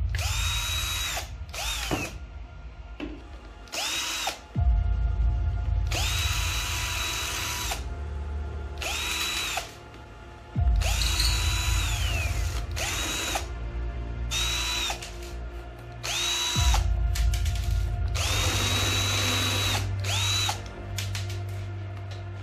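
DeWalt cordless drill/driver driving small screws into a plastic RC car chassis in about a dozen short trigger pulls. Its motor whine spins up and winds down each time, with the pitch falling as it slows.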